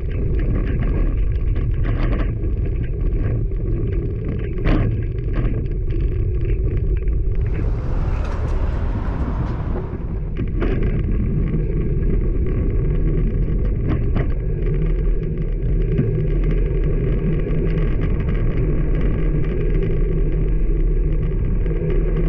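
Riding along a busy main road on a road bike: a steady low rumble of wind on the microphone and passing traffic. A brief hiss rises and fades between about seven and ten seconds in.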